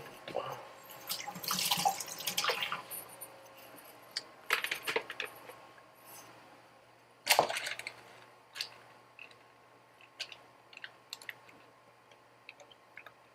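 A jar scraper scraping thick yogurt cheesecake batter out of a food processor bowl: wet scrapes and small taps, with a sharp knock about seven seconds in, then scattered light ticks.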